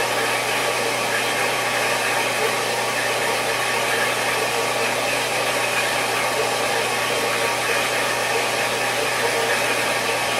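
Small horizontal metal-cutting band saw running without load: a steady electric motor hum under an even rushing whir from the blade and drive.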